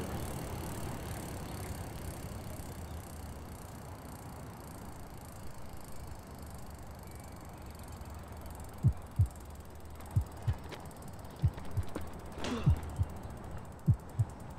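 A heartbeat sound effect fades in about nine seconds in: pairs of soft low thumps, lub-dub, about 1.2 seconds apart, over a faint low hum. A brief sweeping sound rises and falls in pitch near the end.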